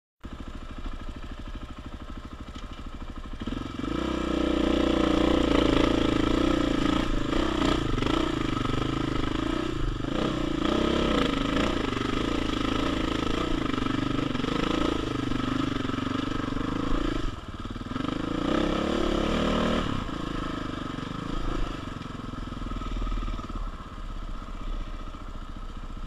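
KTM 500 single-cylinder four-stroke dirt bike engine under way, heard from the rider's helmet camera. It runs at low revs at first. About four seconds in it picks up to hard, louder running, its pitch rising and falling as the throttle is worked, with a brief dip partway through. It eases back to lower revs for the last few seconds.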